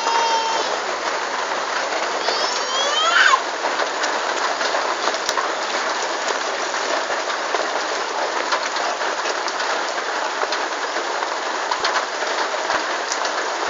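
Steady rain falling on a muddy yard and puddles, an even hiss with scattered drop ticks. About three seconds in there is a brief high, gliding call.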